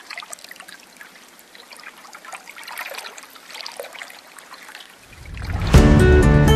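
Faint trickling water, then music swells in about five seconds in and lands on a loud chord with a sharp hit near the end.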